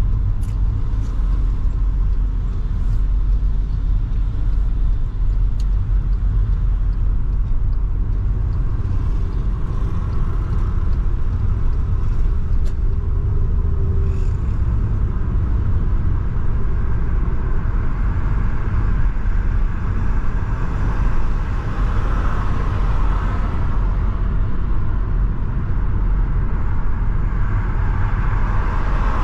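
Car driving on a city road: a steady low rumble of engine and tyre noise, with no break.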